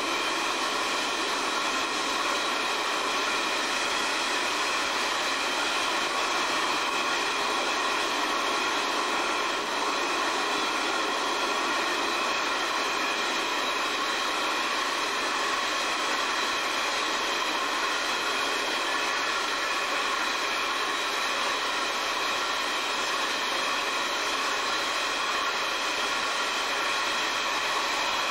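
Coal train's hopper wagons rolling past at a steady speed: a continuous, even rolling noise with a cluster of steady high-pitched tones over it.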